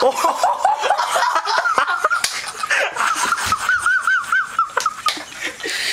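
Young men laughing in a rapid, high-pitched cackle, several short rising-and-falling bursts a second, with sharp slapping sounds mixed in.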